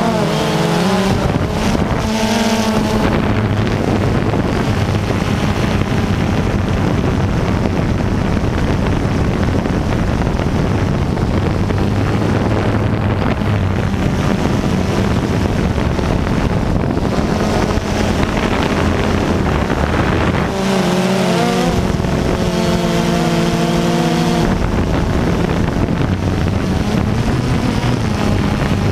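Quadcopter drone's electric motors and propellers whirring, heard close up from the drone's own camera, with wind noise on the microphone. The pitch steps up and down as the drone manoeuvres, most clearly about two-thirds of the way in.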